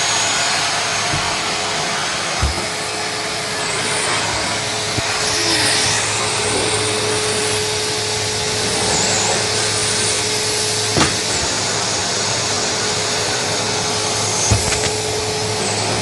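Cylinder vacuum cleaner running steadily with a constant hum, with a few light knocks as it is handled.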